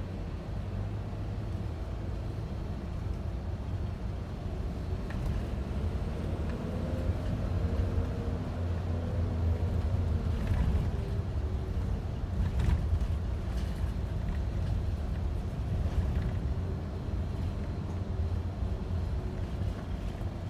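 Inside a moving bus: the engine's steady low drone and road noise, with a few faint knocks.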